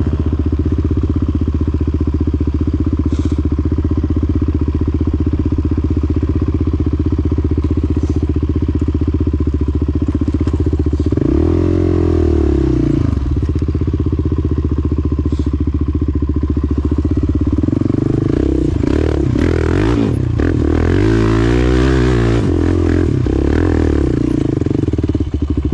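Sport quad's engine running steadily at low throttle. It is revved up and back down once about eleven seconds in, then blipped several times in quick succession a little later.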